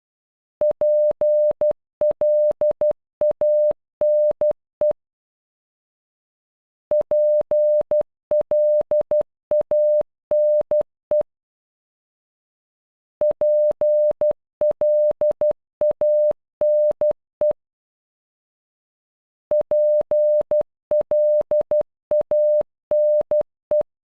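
Morse code beeps: a steady, mid-pitched electronic tone keyed on and off, spelling PLANE (.--. .-.. .- -. .). The word is sent four times over, with a pause of about two seconds between repeats.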